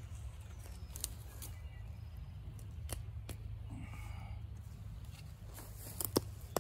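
Ramp (wild leek) leaves being picked by hand: a few crisp snaps of leaf stems a second or two apart, the sharpest near the end, over a low steady rumble.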